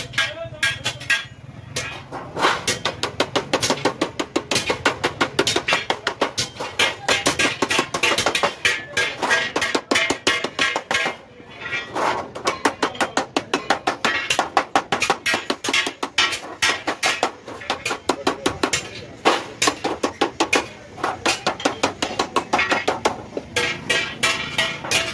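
Rapid, even hammer taps on a small metal punch, embossing lines into a thin polished aluminium sheet, each tap with a light metallic ring. About five taps a second, with a couple of short pauses.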